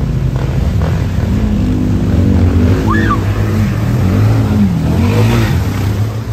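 ATV engine revving up and down as the quad drives through deep creek water, with water splashing and spraying around it; the rush of spray is loudest about five seconds in.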